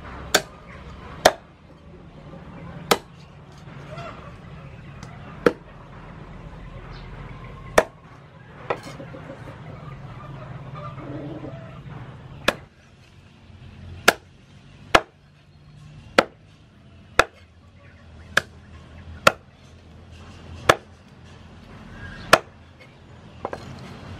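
Meat cleaver chopping chicken pieces on a wooden chopping board: about fifteen single sharp chops, spaced a second or two apart, with a pause of a few seconds near the middle.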